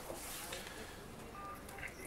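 Quiet office room tone with a single short electronic beep about one and a half seconds in.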